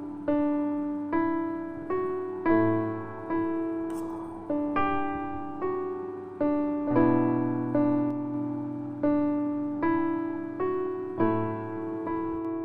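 Background piano music: a slow melody of single notes and chords, a new note struck about every second and each ringing out and fading.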